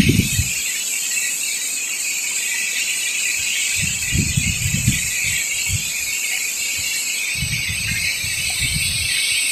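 Strong gusting wind. Gusts buffet the microphone with low rumbles about four seconds in and again near the end, over a steady high hiss.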